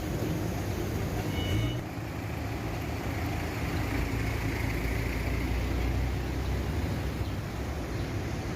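A vehicle engine running with a steady low rumble, with a short high beep about a second and a half in.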